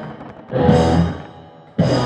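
Live rock band, electric guitars, bass and drum kit, playing loud accented stop-start chord hits, each ringing out and dying away: one about half a second in and another near the end.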